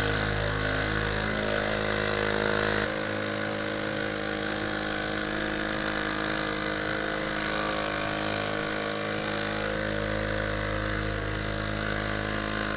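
Background music: a steady synth drone of sustained tones that changes chord once, about three seconds in, then holds.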